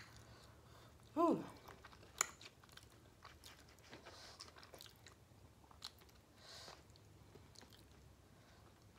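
Fingers sorting through steamed shrimp in a paper food tray, making faint rustling and a few small clicks. About a second in there is a short hum from the eater that falls in pitch.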